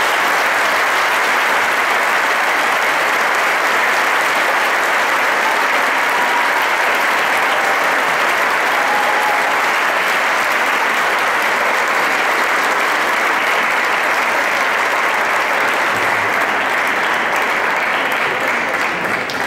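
Audience applauding, loud and steady throughout, easing off slightly at the very end.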